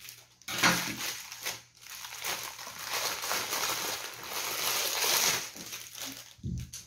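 Crinkling and rustling of a plastic packaging bag as a new rocket-shaped fidget toy is unwrapped, with a soft thump near the end.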